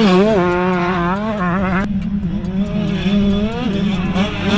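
125cc two-stroke motocross bike engine revving hard under a rider, heard from on board, its pitch climbing and bending as the throttle works. The revs drop sharply about two seconds in, then build again.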